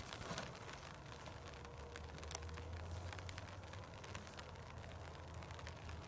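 Faint outdoor ambience: a low steady rumble with light hiss, and one sharp click a little over two seconds in.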